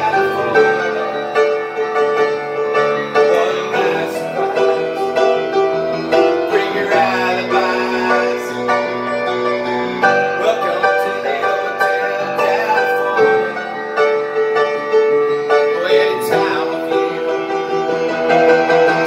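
Upright piano played with chords and melody, and a man's voice singing along over it.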